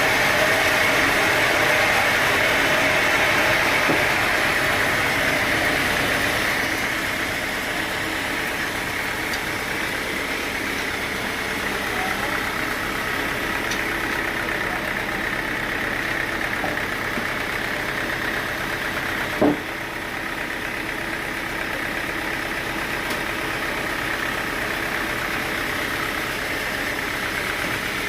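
Sawmill machinery running steadily, with a higher hiss that eases off about a quarter of the way in, and a single sharp knock about two-thirds of the way through.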